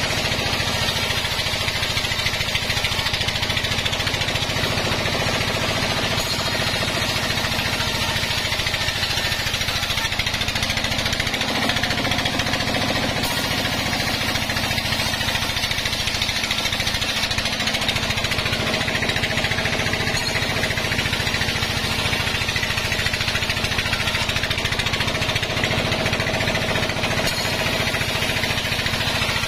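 Band sawmill running steadily while its blade cuts lengthwise through a log: a constant low mechanical hum under a dense, high rasping hiss.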